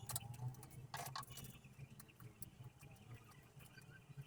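Sheet-metal IO shield being pressed into a PC case's rear opening: a few sharp clicks, the loudest at the start and about a second in, over a low steady hum.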